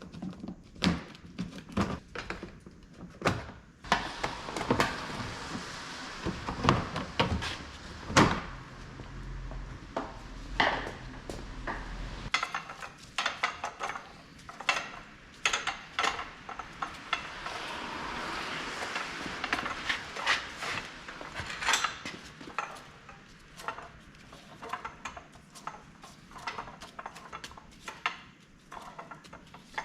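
Hand tools and metal parts clinking and knocking in irregular taps during car repair work, with a low hum that stops about twelve seconds in.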